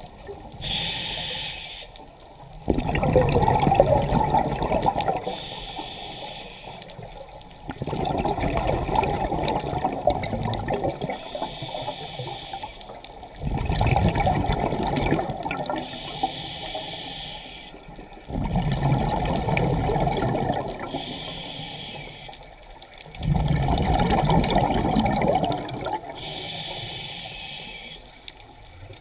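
Scuba diver breathing through a regulator underwater, about six breaths. Each breath is a short hiss on the inhale, then a longer, louder bubbling rush on the exhale.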